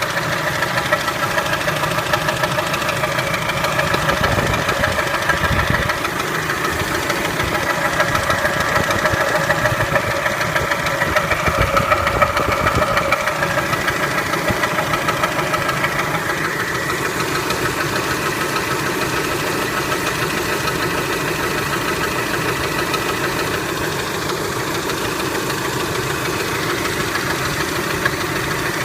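Kia Spectra's four-cylinder petrol engine running steadily with a rapid knock (стук) in its beat.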